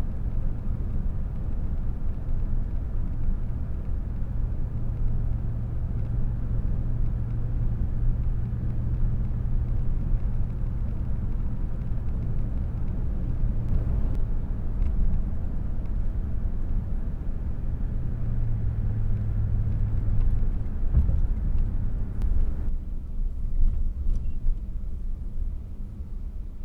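A car driving: steady engine and road rumble, the engine note dropping slightly about two-thirds of the way in and the sound getting quieter near the end.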